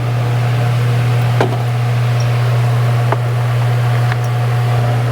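A steady low hum runs under three light clicks or taps, spaced a second or two apart, from parts being handled during a valve cover gasket fitting.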